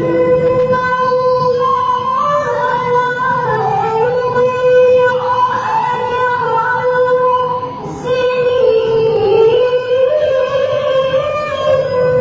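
A high female voice singing unaccompanied-sounding long held notes with wavering, ornamented turns, pausing briefly for breath about eight seconds in.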